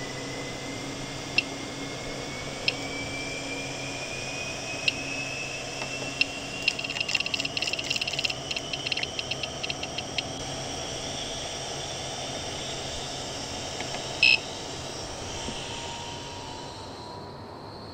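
Wanhao 3D printer's LCD control box beeping and ticking as its control knob is turned and pressed. There are single short beeps, then a quick run of ticks while scrolling through the file list, and one louder, longer beep about fourteen seconds in. The printer's fans hum underneath, with a faint whine slowly rising in pitch.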